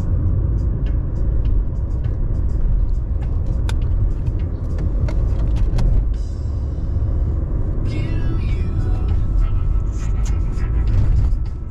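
Steady low rumble of a car on the road, heard from inside, with music playing underneath and scattered light clicks.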